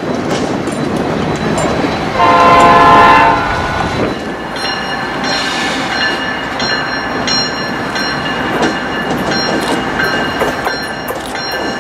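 A diesel locomotive's multi-note air horn sounds one blast of about a second, about two seconds in. It is followed by rumbling train noise with high ringing tones that come and go.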